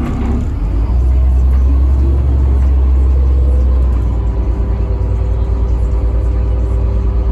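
CAT diesel engine of a Denning Phoenix low-floor bus, heard from the rear seats near the engine, working under load as the bus accelerates. Its deep rumble swells about a second in and eases about four seconds in, with a faint steady whine above it from then on.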